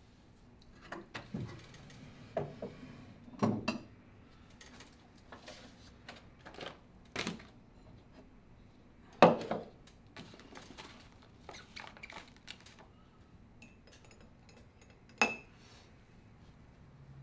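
Irregular light clinks and knocks of small hard objects being handled, like cutlery and crockery, with the sharpest clink about nine seconds in and another near the end.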